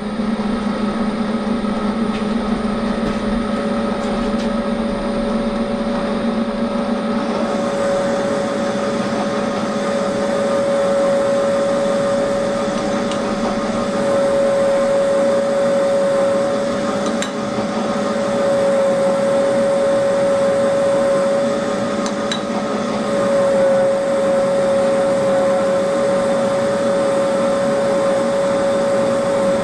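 Bridgeport milling machine running with its fluted cutter feeding into a casting to open out a bore before reaming: a steady machine hum with a constant whine that firms up a few seconds in.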